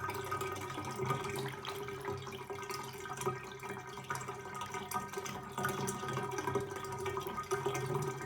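Water running in a bathtub and draining freely down the just-unclogged tub drain, a steady flow with small splashes and drips throughout.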